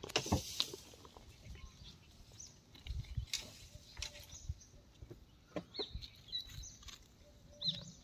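Faint outdoor ambience with a few short bird chirps, mostly in the second half, and scattered light clicks and knocks.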